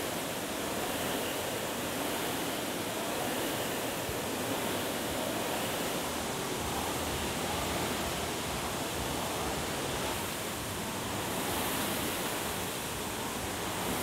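Fan flywheels of several Concept2 air rowing machines spinning together as athletes row, a steady rushing noise with slight swells as strokes overlap.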